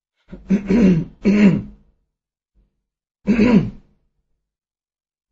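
A person clearing their throat close to the microphone: two quick clearings back to back, then a third about three seconds in.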